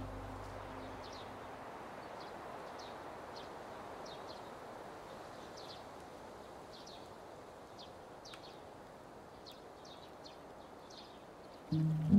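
Outdoor garden ambience: small birds chirping over and over in short high calls above a soft steady hiss. Music fades out at the start and comes back in loudly just before the end.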